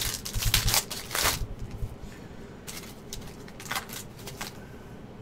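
Trading cards being handled: a run of rustling and sliding over the first second and a half, then a few short brushes of cards further in.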